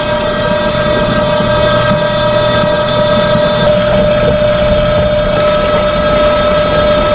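Stainless-steel drum machine running to wash live loaches, its motor giving a steady whine as the loaches churn in the spinning drum, with the hiss and splash of hose water pouring in.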